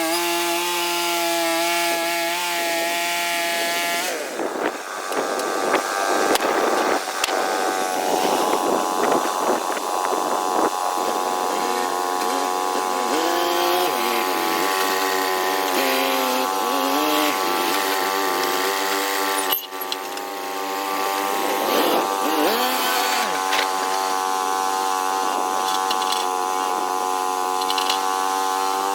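Small sawmill running and cutting a log: a steady machine drone that starts to waver and sag in pitch about four seconds in as the blade takes the load of the cut, with a brief drop about two-thirds of the way through.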